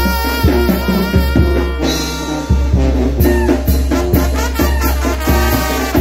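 Trumpets playing a chilena tune together over a steady drum beat.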